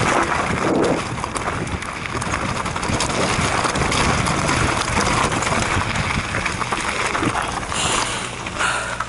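Mountain bike rolling fast down a loose gravel trail: knobby tyres crunching and the bike rattling over stones, with wind buffeting the camera microphone. The noise eases a little near the end as the bike slows.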